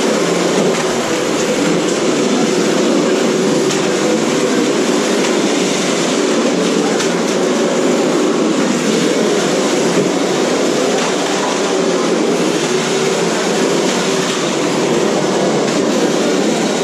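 Several 1/10-scale radio-controlled cars running at once, their motors whining and revving. The pitch wavers up and down continuously.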